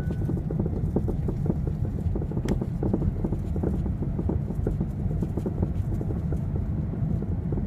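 A car's rapid, irregular knocking over a steady low engine rumble.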